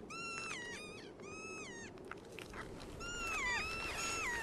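Kea parrots calling: a series of drawn-out calls, each holding a high pitch and then sliding downward, in two bunches with a short pause about two seconds in.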